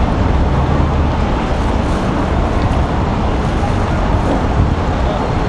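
Steady city street noise: road traffic rumbling without a break.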